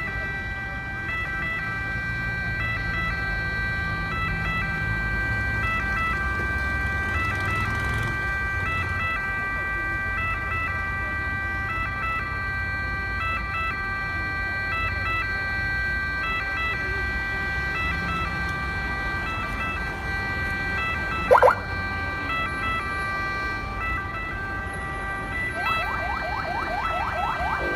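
Ambulance siren sounding continuously over low city-traffic rumble, several steady high tones together, broken by short regular gaps. About 21 seconds in a single short, loud rising whoop cuts through. Near the end a fast siren of quick rising sweeps, several a second, starts up.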